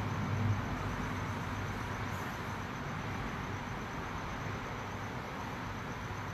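Hot tub jets running: a steady rush of bubbling, churning water.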